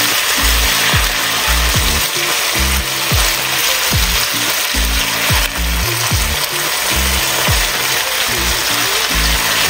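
Marinated beef pieces sizzling in hot oil in a frying pan as they are stirred and flipped with chopsticks, searing toward a browned, fried crust. Background music with a steady bass beat plays underneath.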